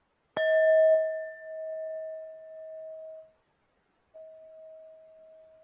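Tibetan singing bowl struck once, ringing at one clear pitch with fainter higher overtones and dying away over about three seconds. About four seconds in, a quieter, steady tone at the same pitch comes in and holds.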